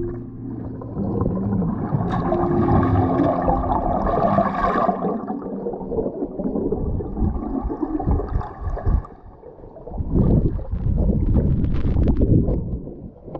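Muffled underwater water noise, with bubbles gurgling around a swimming snorkeler, heard through a submerged camera. It dips briefly about two-thirds of the way through, then picks up again.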